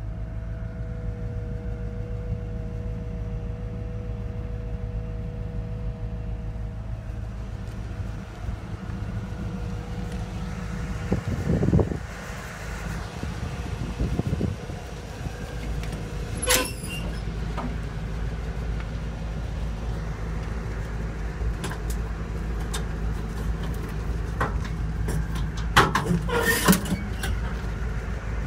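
Ford 460 big-block V8 gas engine idling steadily. A door clunk comes about twelve seconds in, and sharp metal latch and door clanks come near the end as a service-body compartment is opened.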